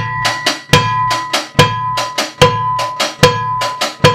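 Drum kit playing a basic cumbia tejana beat: a mounted cowbell struck together with the bass drum a little over once a second, ringing each time, with two hi-hat strokes between each.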